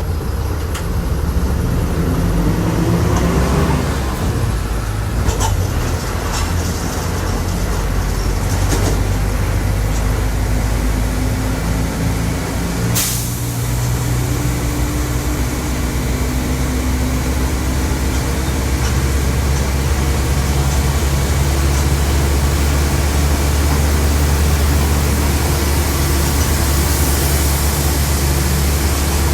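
Volkswagen 17.230 OD bus driving, with a steady low drivetrain drone and a whine that shifts in pitch as the speed changes. This is the differential growling loudly. There is a single sharp click about 13 seconds in.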